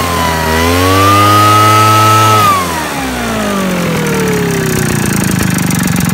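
Backpack mist-blower's small petrol engine running fast, dipping briefly and picking up again, then slowing over about three seconds to a low, pulsing idle.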